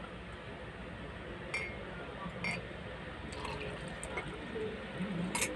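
Liquid being poured into a glass, with a few light clinks of glass, the sharpest near the end.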